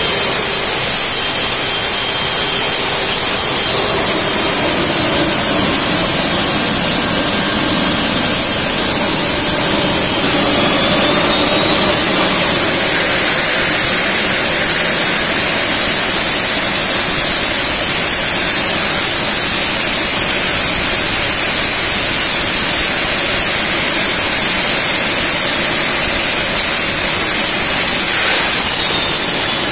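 Turbomeca Palouste gas-turbine air-start unit running with a steady high whine. About ten seconds in it spools up to a higher pitch and holds there, then winds back down near the end. This is the sound of a Palouste running as it should.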